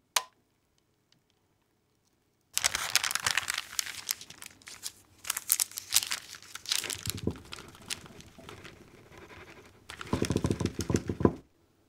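Baking parchment paper crinkling and rustling as it is handled and pulled back from the sides of a baked castella cake. It comes in uneven bursts from about two and a half seconds in and stops shortly before the end, after a single short click at the very start.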